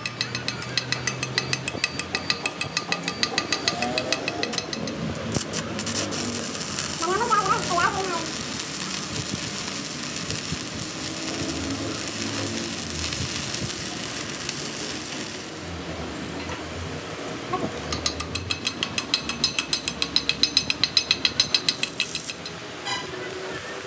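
A slag hammer striking rapidly, about five blows a second, on the weld built up over the broken end of a truck rear axle, chipping off slag. Partway through, the hammering gives way to the steady crackle and hiss of electric arc welding for about ten seconds, and a second run of quick hammer blows follows near the end.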